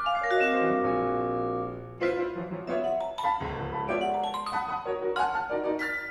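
Grand piano and vibraphone playing contemporary classical music together. A struck chord rings on for about two seconds, then quick, dense runs of mallet and piano notes follow.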